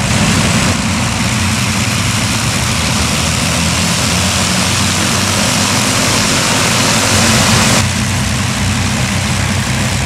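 Four Rolls-Royce Merlin V12 piston engines of an Avro Lancaster bomber running steadily at low power, a deep rumble under a loud rush of propeller and exhaust hiss. The hiss drops away suddenly about eight seconds in.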